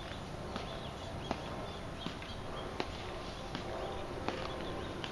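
Measured marching footsteps: sharp heel clicks on stone pavement at an even pace, about one every three-quarters of a second, seven in all, over a steady background hiss.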